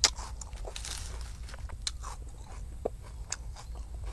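Close-miked eating sounds: crunchy chewing and biting with scattered short clicks, the loudest a sharp crack right at the start, and grilled fish being torn apart by hand.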